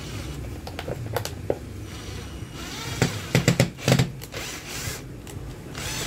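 Cordless drill/driver running in two short bursts, driving a small screw into the plastic rear cover of an electric fan motor, with several sharp clicks during the second burst.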